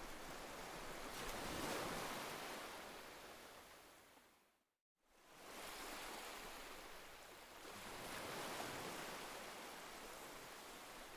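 Faint, even rushing noise that swells and fades like surf, cutting out briefly about five seconds in.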